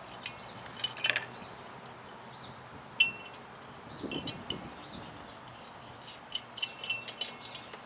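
Small metal hardware clinking and tapping as it is handled: a few sharp clicks with a brief metallic ring, as a nut is fitted back onto a fog light's mounting stud.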